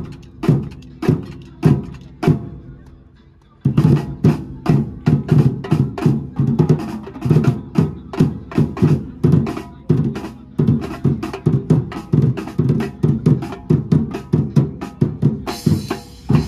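Live drum troupe playing large LED-lit drums: slow, evenly spaced heavy strikes a little under two a second, a pause of about a second, then a fast, dense drumming rhythm from about four seconds in.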